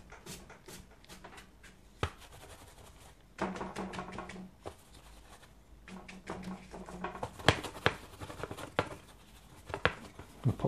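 Large hake brush swept and dabbed across wet watercolour paper in soft scratchy strokes, with a few sharp taps, the loudest about three-quarters of the way through.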